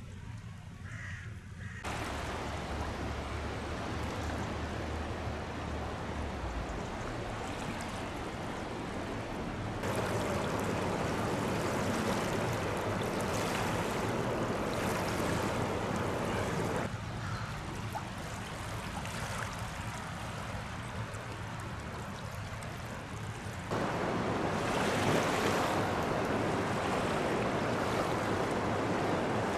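Swollen river running high with rain and snowmelt: a steady rush of flowing water that jumps louder and quieter several times.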